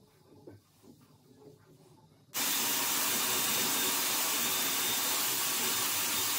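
Dyson Airwrap hot-air styler with its curling barrel attached, switching on about two seconds in and then blowing a loud, steady rush of air. Before it there is only faint rustling of hands handling hair.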